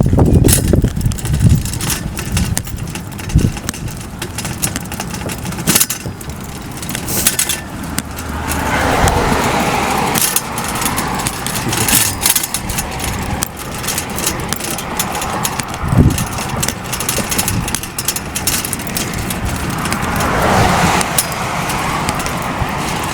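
Car and road traffic noise, with swells as vehicles go by and a few sharp knocks along the way.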